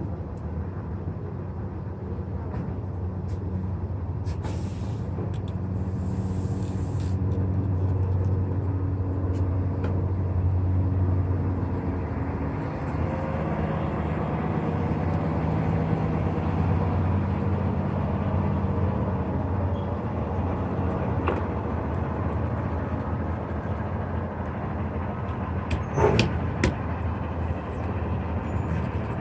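Truck engine idling steadily, with two short hisses about four and six seconds in and a sharp knock near the end.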